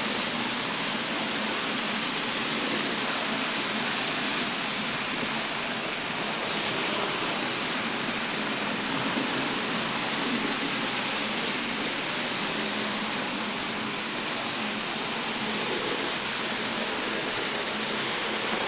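Minitrix N gauge model trains running on the layout: a steady rushing whir of their small electric motors and metal wheels on the track.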